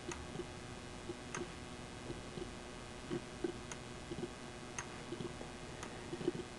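Faint, scattered computer mouse clicks, a second or so apart, with soft low knocks between them.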